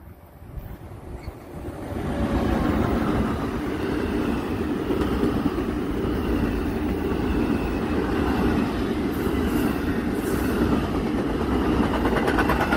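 Passenger train of double-deck coaches passing close by. The sound builds over the first two seconds into a steady rumble of wheels on rails, with a quick run of clicks near the end.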